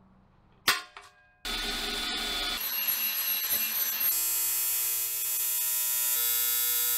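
An angle grinder running against the metal intercooler tank's lid, grinding down weld bumps, starting abruptly after a sharp click. Near the end it changes to a steady electric buzz from arc welding on the tank.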